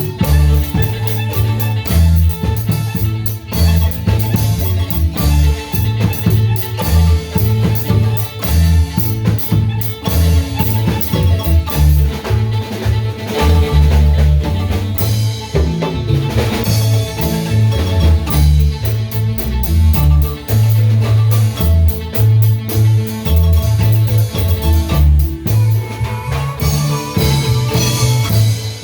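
Marimba ensemble playing a lively tune: mallets striking the wooden bars in quick runs over a moving bass line, with a drum kit keeping the beat.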